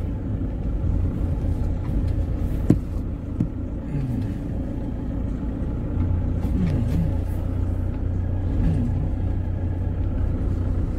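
Inside a car driving slowly over a rough, potholed dirt road: a steady low rumble of engine and tyres, with one sharp knock from a jolt about two and a half seconds in.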